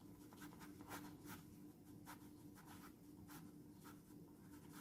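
Faint handwriting: short, irregular scratchy strokes of a pen writing out words, over a faint steady hum.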